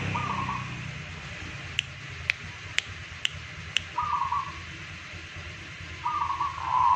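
Zebra dove (perkutut) cooing in three short rolling coo phrases, the last near the end the longest. Five sharp ticks come about half a second apart between the first two phrases.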